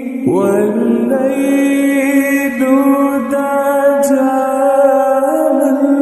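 Arabic devotional naat sung as a ringtone: a voice holding long notes that shift slowly in pitch, with a quick upward swoop just after the start.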